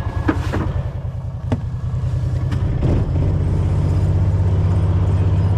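A vehicle engine running with a steady low hum that grows louder and more even about three seconds in, with a couple of sharp clicks in the first two seconds.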